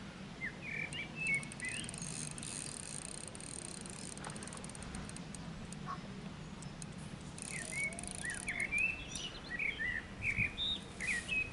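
Small birds chirping in short rising and falling notes, in a brief spell about a second in and again more busily from about seven seconds in.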